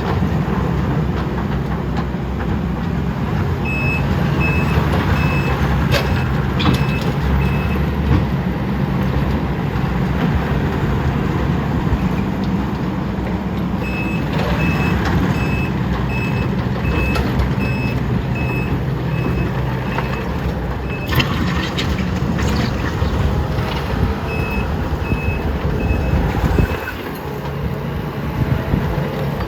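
Heavy diesel construction machines, a skid steer and an excavator, running hard under load, with a backup alarm beeping about twice a second in three separate runs. There are a few sharp knocks, and the engine noise drops off near the end.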